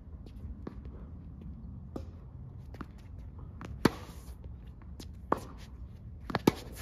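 Tennis ball struck by racket strings in a baseline rally on a hard court: a sharp pop of a backhand groundstroke about four seconds in and another near the end, with quieter hits from the far end and ball bounces between them. Light footsteps shuffle on the court throughout.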